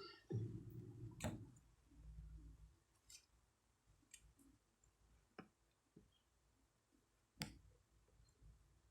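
Near silence broken by a soft low thump just after the start and a handful of faint, irregularly spaced clicks, the clearest about a second in and near the end.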